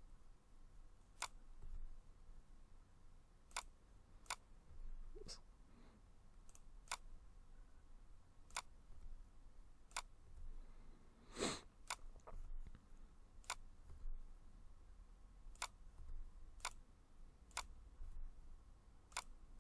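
Faint, separate clicks of a computer mouse and keyboard, about one a second, one a little louder just past the middle.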